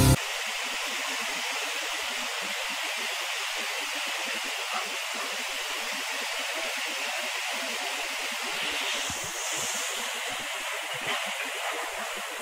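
Fast-flowing river rapids rushing, a steady hiss of water.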